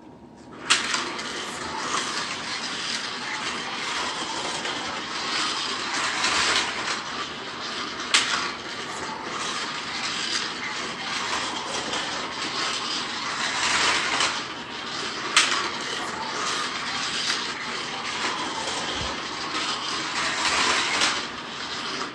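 Carrera GO!!! 1:43 slot car, a Chevrolet Corvette Z06/C7.R model, running laps on a plastic slot track: a steady whirring and rattling of its small electric motor and wheels on the track, with three sharp clacks along the way. It starts about a second in and stops just before the end.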